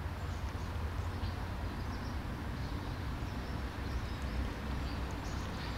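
A cat crunching dry kibble from a plastic tub: faint, irregular small crunches over a steady low background rumble.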